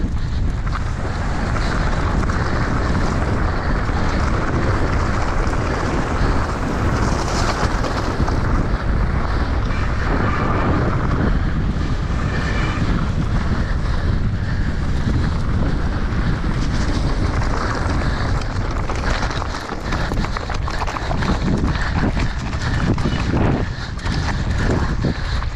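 Heavy wind buffeting on an action camera's microphone during a fast mountain bike descent. Many small clicks and knocks from the bike rattling over rough ground are mixed in.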